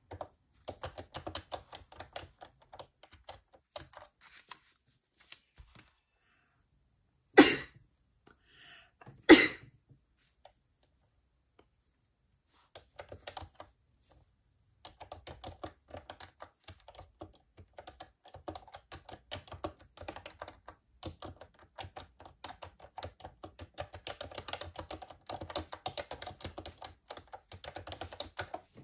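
Typing on a computer keyboard: runs of rapid key clicks that stop for several seconds partway through, then pick up again and grow denser. Two loud knocks about two seconds apart fall in the pause and are the loudest sounds.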